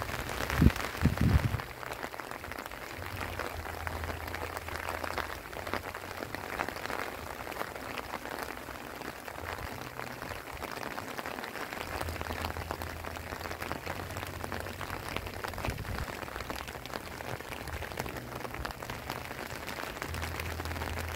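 Steady light rain, many small drop ticks over an even hiss. There are a couple of low thumps about a second in.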